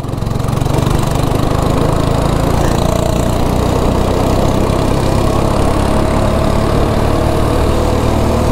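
Go-kart engine heard from the driver's seat, picking up over the first second as the kart accelerates out of a corner, then running steadily under power.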